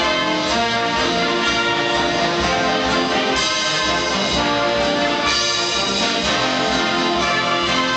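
A live brass ensemble playing a piece, with several instruments together holding chords that change every second or so.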